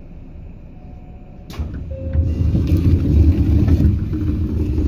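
Running noise inside a Seibu 2000 series electric train: a steady quiet run, then about a second and a half in a sharp crack and a sudden loud, deep rumble that lasts about three seconds.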